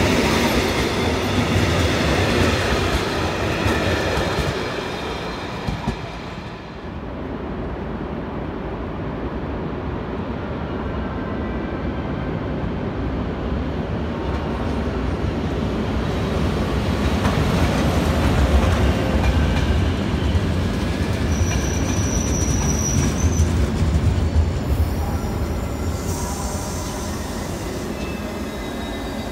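Train running on the rails with a steady low rumble, its wheels squealing in the first few seconds and again briefly about two-thirds of the way through.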